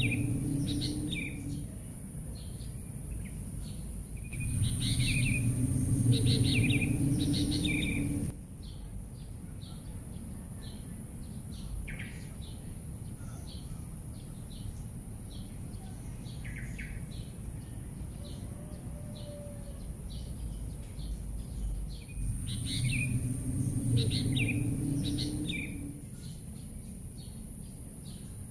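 Birds chirping and calling throughout in short repeated notes. Louder stretches of a low rumble and a steady high hiss come and go: one cuts off abruptly about eight seconds in and another returns near the end.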